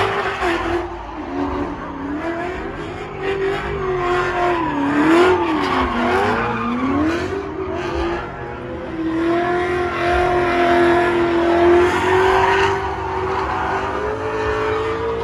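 Drift cars' engines revving hard while their tires squeal and slide. The engine note swings up and down with the throttle for the first half, then holds a steadier, slowly rising pitch.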